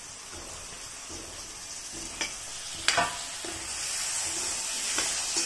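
Chopped tomatoes and onions frying in oil in a kadai while a spoon stirs them, scraping and knocking against the pan. The sizzle grows louder toward the end, and a sharp clink of the spoon on the pan about three seconds in is the loudest sound.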